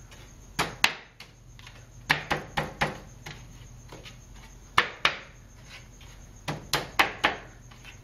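Pieces of a wooden stool knocking and clacking together as the foot ring is worked down over the interlocked legs into its notches: a series of sharp wooden knocks, some in quick clusters of three or four, with quieter gaps between.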